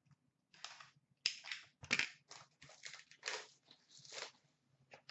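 Packaging on a sealed box of Upper Deck hockey cards being torn and crumpled as the box is opened: a string of irregular crinkling, crackling rasps, loudest about a second and two seconds in.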